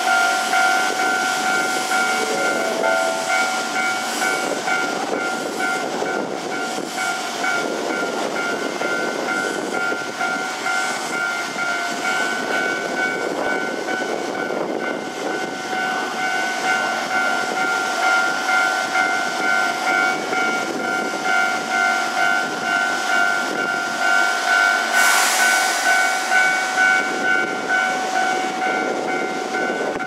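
Keisei 3700 series electric train standing at the platform, with a steady high-pitched tone over a rumbling hum. A burst of hiss comes about 25 seconds in.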